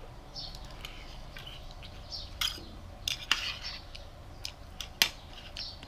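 Metal spoon and fork scraping and clinking against a ceramic plate of rice, with a few sharp clinks among quieter scrapes.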